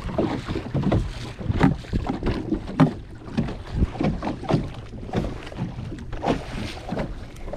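Water slapping and splashing in irregular strokes against the hull of a moving kayak, with wind buffeting the microphone.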